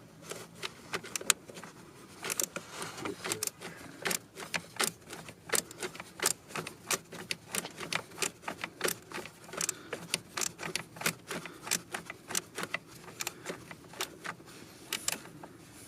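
Old Husky quarter-inch hand ratchet clicking as it drives in the eccentric shaft sensor screws: a long, slightly uneven run of sharp clicks, about three a second.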